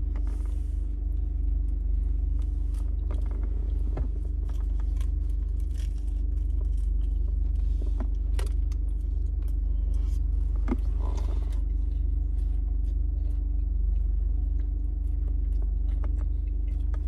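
Steady low rumble and hum inside a car's cabin, with scattered small clicks and rustles as a sandwich is handled and bitten into.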